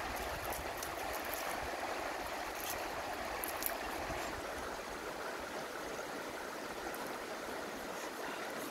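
Shallow rocky river flowing: a steady, even rush of running water, with a few faint light clicks in the middle.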